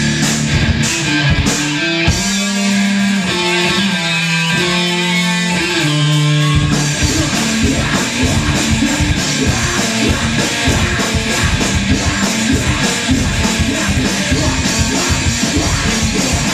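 Live rock band playing through amplifiers: electric guitars, bass and drums. About two seconds in the drums drop out and the guitars hold ringing notes, then a little after six seconds the full band comes back in with fast, busy drumming.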